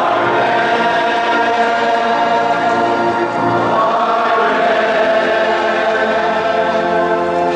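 A choir singing a church hymn in long held notes.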